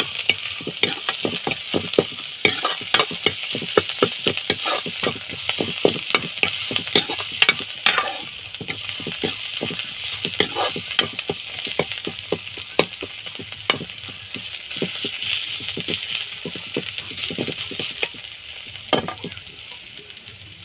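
Onions, chillies and garlic sizzling in hot mustard oil in a kadhai, with a steel ladle scraping and knocking against the pan as it stirs. The knocks come thick for the first eight seconds or so, then thin out while the sizzle goes on.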